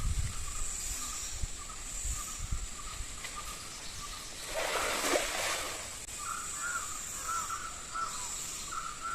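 Birds calling in short repeated notes, mostly in the second half, over a steady high insect hiss, with a brief rushing noise about five seconds in.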